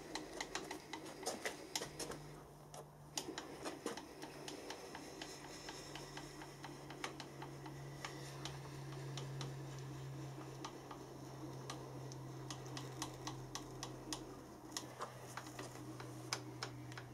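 Mini mill's cross-slide table wound along its Y axis by its handwheel and leadscrew: faint, irregular small clicks and ticks from the moving slide, over a low steady hum.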